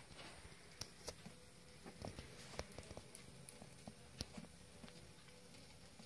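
Faint, irregular light taps and clicks in a bathtub, a few a second, over near silence.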